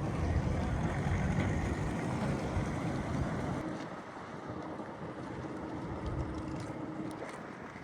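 Wind buffeting the microphone aboard a moving tour boat, over the rush of the boat's passage. The heavy low rumble drops away sharply about three and a half seconds in, leaving a fainter steady hum.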